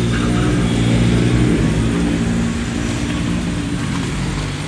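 A motor vehicle's engine running steadily with a low hum.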